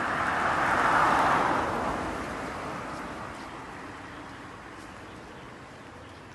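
A vehicle passing by: a steady noise that swells to its loudest about a second in, then fades away slowly.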